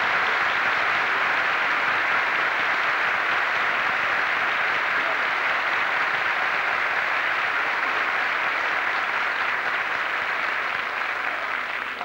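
Theatre audience applauding steadily after a sung jota duet, the clapping dying away in the last second or so.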